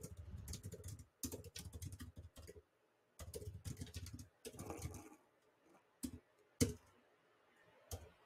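Faint typing on a computer keyboard: two quick runs of keystrokes, then a few separate key presses spaced out near the end.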